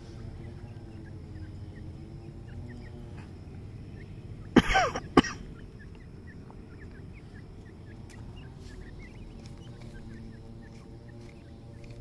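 Soft, short chirps scattered throughout from foraging francolins, over a steady low hum. About four and a half seconds in comes a brief loud cough-like sound, opening and closing with a sharp click.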